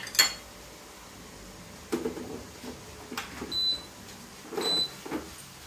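Clatter of a Turkish coffee machine's pot being handled and set into the machine, with a sharp click at the start. Two short electronic beeps from the machine's buttons come about three and a half and four and a half seconds in.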